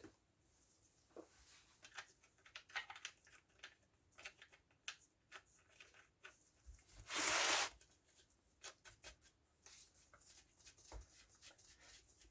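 Small clicks and taps of chainsaw parts and tools being handled during reassembly, with one louder scraping hiss lasting about half a second, about seven seconds in.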